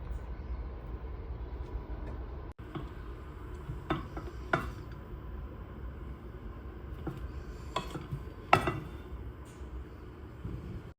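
A serving spoon clinking and scraping against the pot of biryani, a few separate sharp knocks, the loudest near the end, over a steady low hum.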